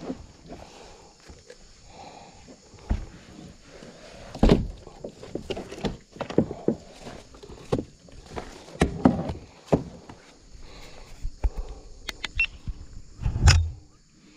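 Irregular knocks and thumps on a plastic kayak hull as a freshly caught giant snakehead is handled and laid down in the boat. The loudest thump comes near the end.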